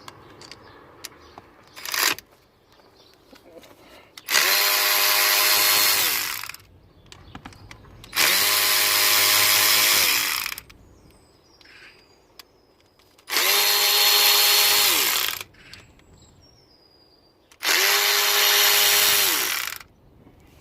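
Power drill-driver running four times for about two seconds each, its motor whine rising as it spins up and falling as it stops: spinning out the small coil-pack bolts on the engine.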